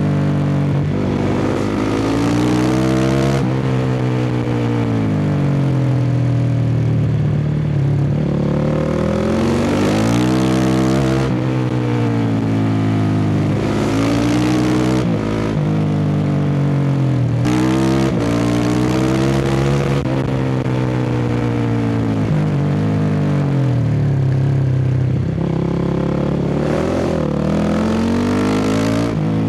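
Honda CRF450R's single-cylinder four-stroke engine with a full Akrapovič dual exhaust, ridden hard: revving up under throttle and dropping back at each shift or throttle lift, its pitch climbing and falling again several times.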